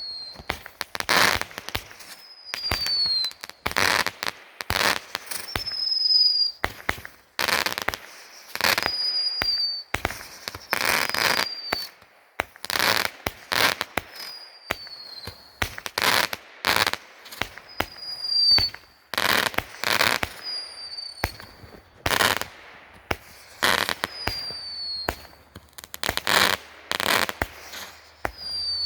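A 90-shot consumer fireworks cake firing in rapid succession: a steady run of sharp launch cracks and bursts, one or two a second, with a short falling whistle about every two seconds.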